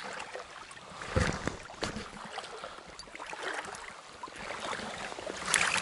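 Shallow river water splashing and sloshing in irregular bursts, with scattered sharp clicks, as a hooked grayling is drawn in through the shallows.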